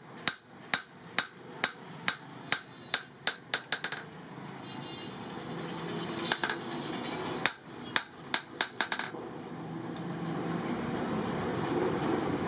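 Hammer blows on steel, about two a second and quickening over the first four seconds. After a short pause comes a second run of about six strikes, some of them ringing. A steady noise builds in the last few seconds.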